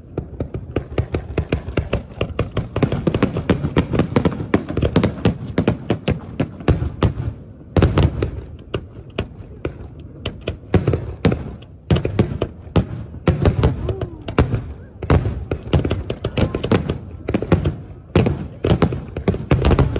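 Aerial fireworks bursting in a rapid, near-continuous string of sharp bangs, deafening, with a brief lull before a heavy bang about eight seconds in.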